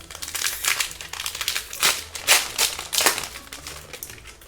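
Foil wrappers of Pokémon card booster packs crinkling in the hands as the packs are opened, in irregular crackles with the loudest about two and a half seconds in.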